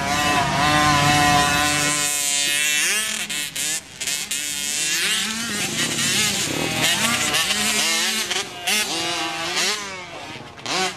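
50cc motocross bike engines racing at high revs, the pitch held steady for about two seconds, then rising and falling over and over as the throttle is opened and closed. More than one engine is heard at once.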